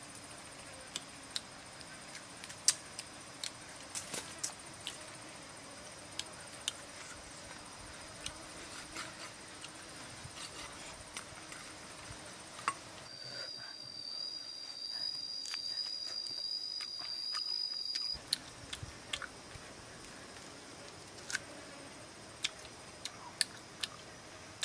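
Someone eating grilled beef ribs by hand: scattered sharp clicks of chewing and tearing meat. About halfway through, a steady high-pitched insect drone comes in for some five seconds and stops abruptly.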